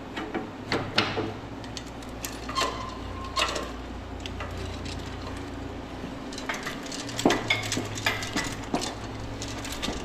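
Irregular metal clinks and knocks, a few ringing briefly, as an engine and transmission hung on a hoist are shifted and worked down into a car's engine bay, over a steady low hum.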